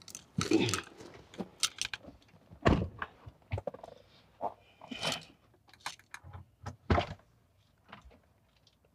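Thumps and clicks of people getting into a Lamborghini Huracán EVO: car-door and cabin handling noises, with two louder thunks, about three seconds in and near seven seconds.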